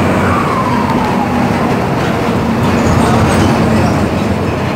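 Turbo-diesel bus engine running under way, with the whistle of its turbocharger, which is fitted with a 'pente' (comb) insert to make it sing. The whistle falls in pitch over the first two seconds, then rises faintly again about three seconds in, over a steady engine drone, heard from inside the bus.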